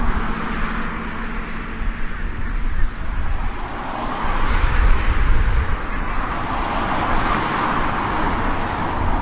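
Steady road traffic noise with a low rumble, swelling twice as vehicles pass.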